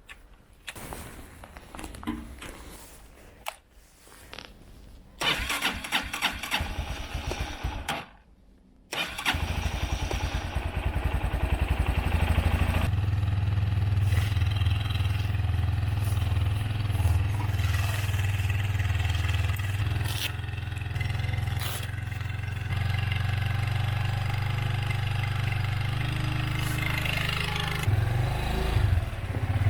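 Honda FTR223 single-cylinder engine being started on its starter: a few seconds of cranking, a short pause, then it catches about nine seconds in and settles into a steady idle, getting louder a few seconds later. It is the bike's first start after standing unused for a long time.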